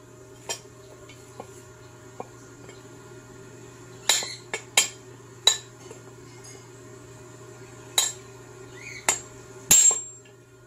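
Metal tools and engine parts clinking and tapping against each other in a workshop, a scattered series of sharp metallic clinks with a light ring, coming in two clusters, about four seconds in and again near the end.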